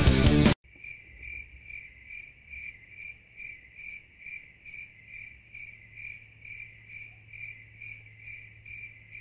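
Rock music cuts off abruptly just after the start, leaving a cricket chirping at a steady, even rate of about two and a half chirps a second over a faint low hum.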